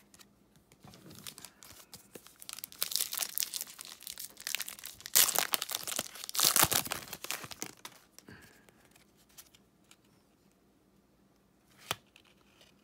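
Foil wrapper of a 2018-19 NBA Hoops trading-card pack being torn open and crinkled in the hands, a run of crackling rips that is loudest about five and six and a half seconds in. A single sharp click near the end.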